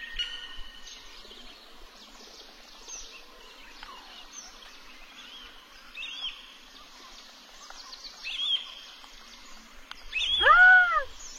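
Small birds chirping in short, high calls, with one louder call about ten seconds in that rises and falls in pitch in a single arch lasting under a second.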